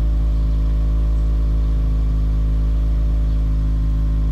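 Subaru WRX's turbocharged flat-four idling steadily through a catless ISR performance exhaust, at an even pitch with no revs, while still cold from its start.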